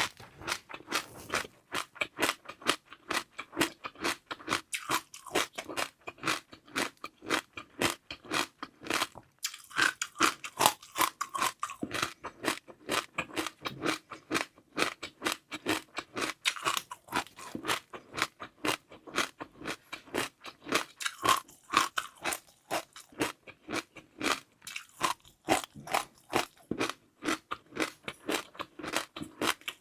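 Close-miked ASMR eating sounds: a person chewing a crunchy, chewy dessert of seaweed pearls and jelly, a continuous run of short wet crunches and clicks several times a second.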